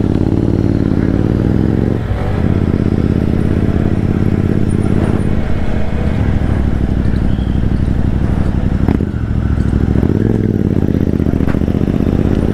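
Small single-cylinder motorcycle engine pulling away and accelerating, its exhaust note climbing and then dropping at gear changes about two, six and nine seconds in.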